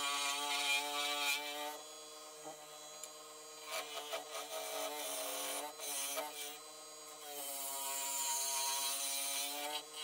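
Wood lathe running with a steady motor whine while a gouge cuts the spinning wood blank, throwing off shavings. The cutting hiss comes in passes, loudest in the first two seconds and again in the second half.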